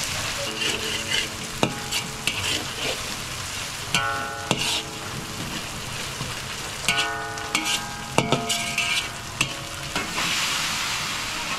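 Chopped onion, garlic and ginger sizzling in oil in a wide metal wok, with a metal spoon scraping and clinking against the pan as it is stirred. There are short stretches of steady ringing.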